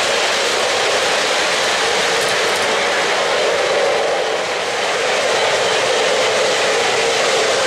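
Three-rail O-gauge model trains running on metal track: a steady, even rolling noise of wheels on rails with no distinct clicks or pauses.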